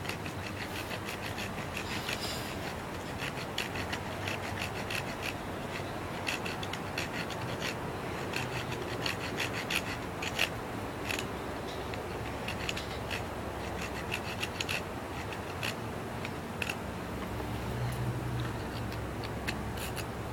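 Small saw blade of a stainless-steel multi-tool cutting into a wooden stick: a steady series of rasping back-and-forth strokes.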